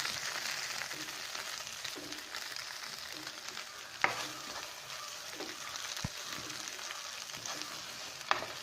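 Fully cooked beef brain roast sizzling in a hot pan, a steady frying hiss, with a few sharp clicks of a utensil against the pan as it is scooped out.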